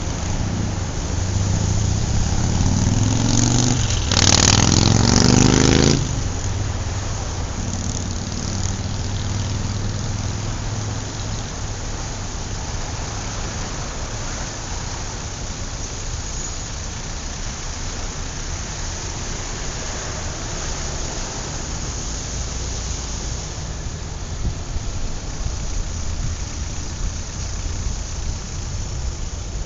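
City street traffic: a steady rumble and hiss of passing cars. A few seconds in, one vehicle comes up close with its engine note climbing, the loudest moment, and cuts off sharply after about two seconds.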